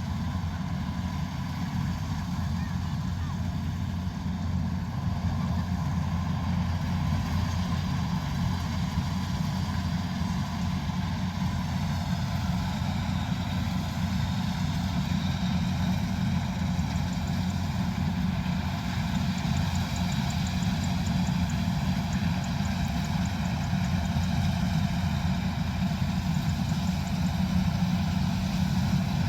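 Kubota combine harvester's diesel engine running steadily, a continuous mechanical drone that grows slightly louder about five seconds in.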